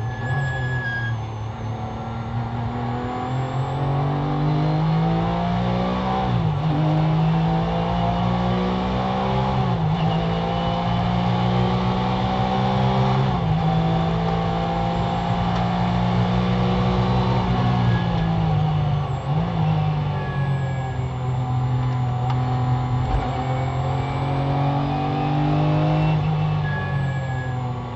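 Porsche GT3 race car's flat-six engine heard from inside the cockpit under hard acceleration. It climbs in pitch and drops sharply three times as it shifts up, holds high revs on the straight, then drops as it slows for a corner before pulling up through the revs again.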